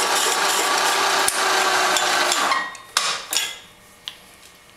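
Hole saw in a vertical milling machine cutting through sheet metal: a loud, steady grinding with a ringing tone, which stops about two and a half seconds in. A few sharp metal clanks follow as the quill is raised.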